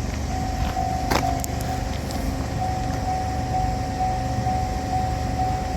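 Japanese railroad crossing warning bell ringing its repeating electronic clang, over a low steady rumble from the track. A single sharp clack sounds about a second in.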